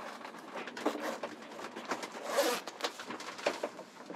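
Rustling and light clicks of gear being handled, with one longer rasp about two and a half seconds in.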